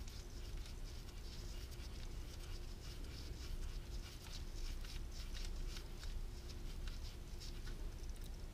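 Faint, irregular scratchy ticking and rubbing as gloved fingers turn a loosened 8 mm bolt out of the clutch oil filter cover by hand.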